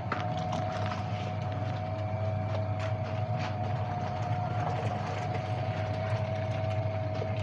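Electric motor of a Pak Asia twin-tub washing machine running, a steady low hum with a thin steady whine over it, and a few light ticks.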